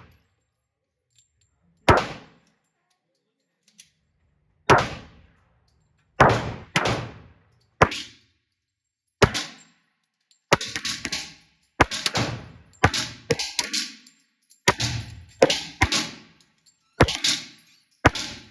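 A string of pistol shots from a Glock handgun, each a sharp crack with a short ringing tail. They are single and spaced a second or more apart at first, then come in quicker strings of two or three from about halfway through.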